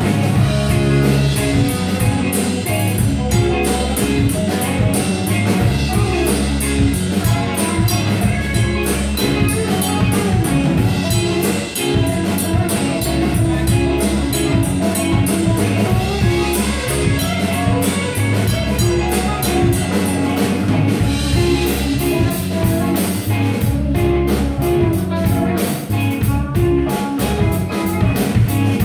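Live rock band playing on electric guitars, electric bass and a drum kit, with a steady drum beat.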